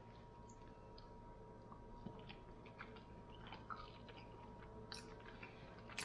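Faint, scattered crackling and clicking of a cooked shell-on shrimp being peeled by hand and eaten, with soft chewing; a sharper click comes about five seconds in and another near the end.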